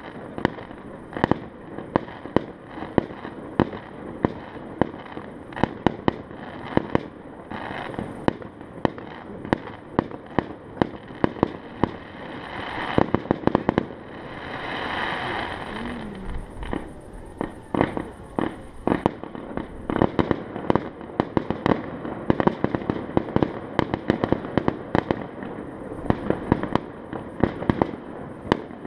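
Fireworks going off: a dense, irregular run of sharp bangs and cracks, several a second. About halfway through, a hissing rush swells up and fades away.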